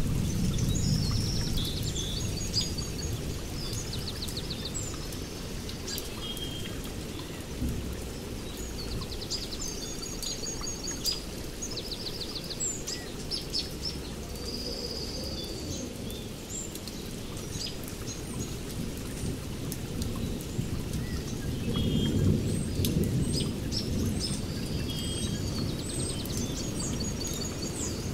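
Birds chirping and trilling over a steady low rumble of rain and distant thunder; the rumble swells about two-thirds of the way through.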